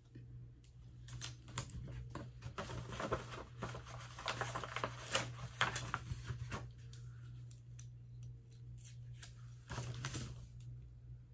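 Paper rustling and light clicking and tapping as hands handle printed paper sheets and small sublimation dog tags on a tabletop, busiest in the first half and again near the end, over a steady low hum.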